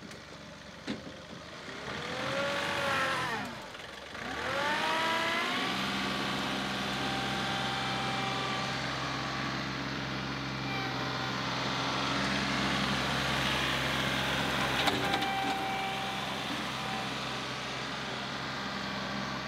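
John Deere 2038R compact tractor's three-cylinder diesel engine at work with its front loader. The engine note falls and climbs again in the first few seconds as the throttle changes, then runs steadily for the rest.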